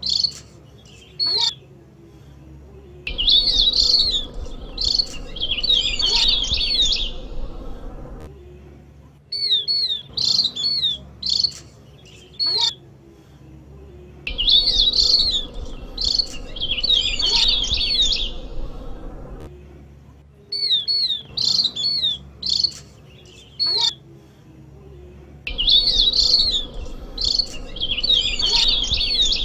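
Opior jawa (Javan grey-throated white-eye) call played as a lure recording: dense bursts of fast, high chirping lasting four to five seconds, with short single calls between them, the same sequence looping about every eleven seconds.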